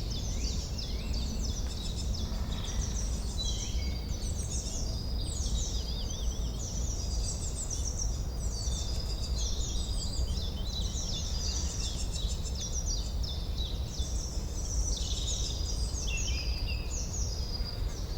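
Forest birdsong: many small songbirds chirping and trilling at once in quick, mostly falling notes, over a steady low background noise.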